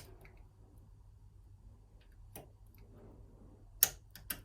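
A few sharp metallic clicks as a piano-wire pick and tension tool work the levers inside a 5-lever curtain-sided mortice lock, with two clicks close together near the end the loudest.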